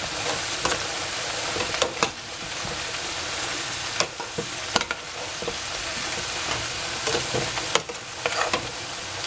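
Ground meat sizzling as it fries in a stainless steel pot, with a steady hiss, while a metal spoon stirs it, clinking and scraping against the pot every second or so.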